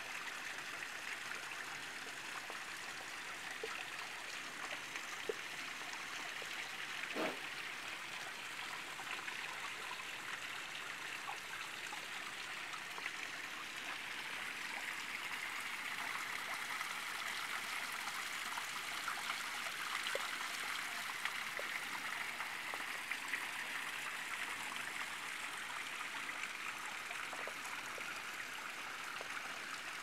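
Water of a thin seasonal waterfall trickling and splashing steadily as it slides down a steep rock face.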